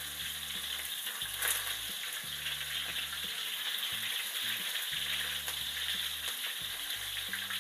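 Pandan-wrapped chicken wings deep-frying in hot oil in a wok: a steady sizzle with fine crackles, and a single sharp tap about a second and a half in.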